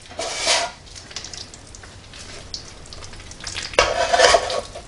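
Gloved hands handling a raw ground-beef meatloaf mixture in a glass bowl over a metal loaf pan: soft, wet squishing and rustling, with a louder burst of handling noise near the end.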